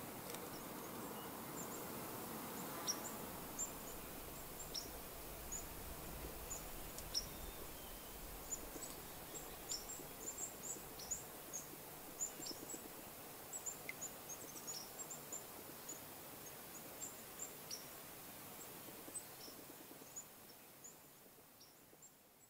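Quiet evening outdoor ambience: a steady soft hiss with many scattered short, high chirps, dying away near the end.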